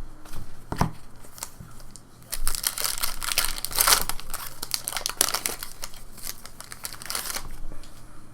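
Trading card pack wrapper being torn open and crinkled: a few light clicks, then a few seconds of dense crackling before it eases off near the end.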